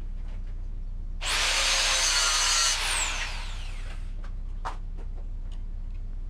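A handheld power tool runs for about a second and a half, then is released and spins down with a falling whine. A few light clicks and knocks come before and after it.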